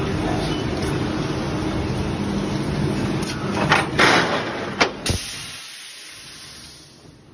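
Plastic injection molding machine with a 48-cavity PET preform mold running steadily through a mold-open and eject cycle. Several sharp clacks come about four to five seconds in as the preforms are ejected and drop out of the mold, and then the machine noise fades away.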